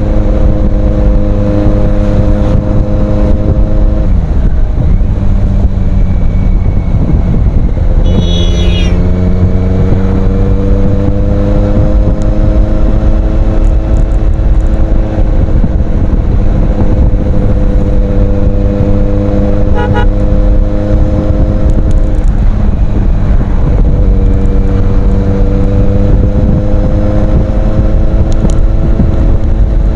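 Kawasaki Z800's inline-four engine running through an Ixil aftermarket exhaust at a steady note. Its pitch dips and climbs back a few times.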